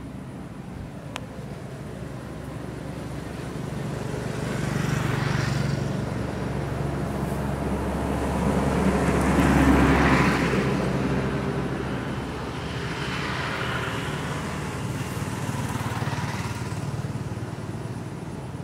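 A motor vehicle passing by: engine and road noise build up to a peak about ten seconds in and then fade, with a smaller swell near the end.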